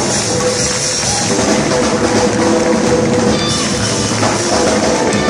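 Live band playing an instrumental passage, with drum kit and electric guitars and no vocals.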